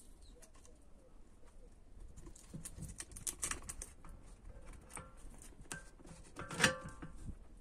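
Scattered metallic clicks and knocks from fitting the top mount and dust boot onto a MacPherson strut whose coil spring is held in spring compressors. A louder clank near the end rings briefly.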